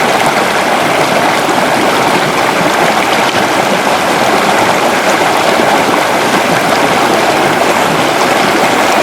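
Loud, steady rush of flowing water.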